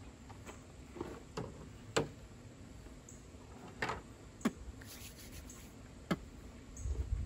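Scattered light clicks and knocks of a wooden hand-drill fire kit, fireboard, spindle and knife, being handled and set down on a tabletop, about six separate sharp taps. A low rumble comes in near the end.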